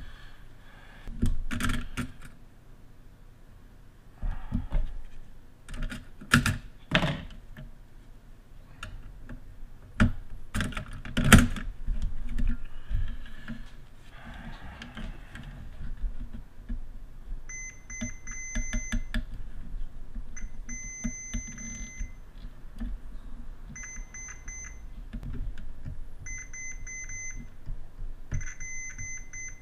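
Handling clicks and knocks first. Then, in the second half, a digital multimeter's continuity beeper sounds five times, each a steady high beep one to two seconds long, as the test probes touch the motherboard's CPU power-stage MOSFETs. The beep signals a short, the sign of a failed MOSFET.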